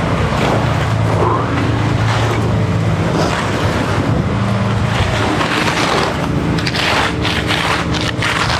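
Engine of concrete-pour equipment running steadily, with a gritty scraping noise over it and a quick run of sharp knocks near the end.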